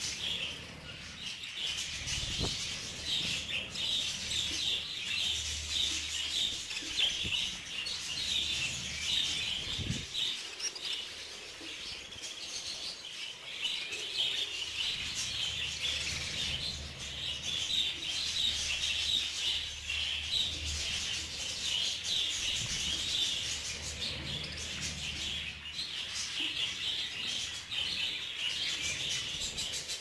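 A flock of budgerigars chattering and chirping steadily as they feed, many short overlapping calls with no pause.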